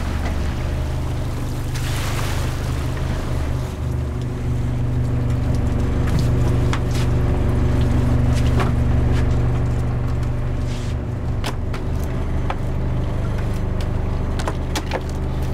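A fishing boat's engine and pot hauler running with a steady low drone while lobster pots are hauled aboard, with scattered sharp clicks and knocks from the pots and gear in the second half.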